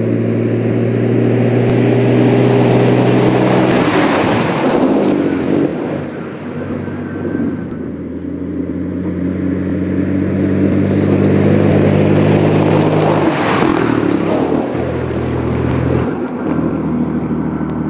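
GINAF Dakar rally truck's diesel engine running hard as the truck speeds over desert sand and gravel, with two swells of tyre and gravel noise as it passes close, about four seconds in and again about thirteen seconds in. The engine note drops near the end.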